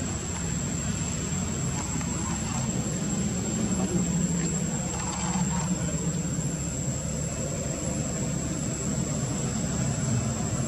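Steady low engine rumble of motor traffic, with a constant thin high whine above it.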